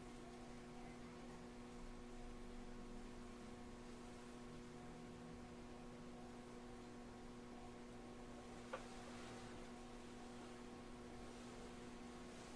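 Steady electrical hum made of several steady tones, in a train car standing still with no running noise, and one brief click about nine seconds in.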